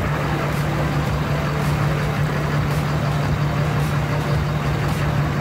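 LLY Duramax 6.6-litre V8 turbodiesel running steadily at low speed while the truck wades through deep flood water, with muddy water churning and splashing around the front tyre.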